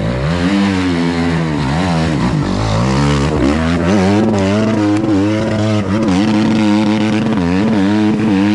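Dirt bike engine revving hard while climbing a steep hill, its pitch repeatedly rising and falling as the throttle is worked, then holding higher and steadier near the end.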